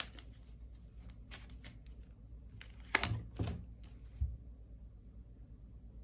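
Tarot cards being handled: quick paper flicks and rustles as cards are drawn and laid out, loudest about three seconds in, followed by a soft thump just after four seconds.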